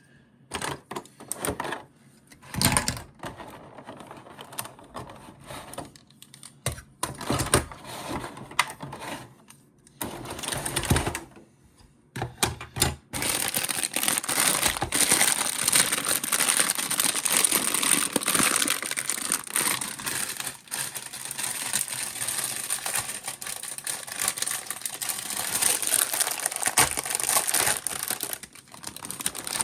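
Toy packaging being handled: scattered plastic clicks and taps for the first dozen seconds, then steady crinkling and rustling of plastic wrap from about thirteen seconds in.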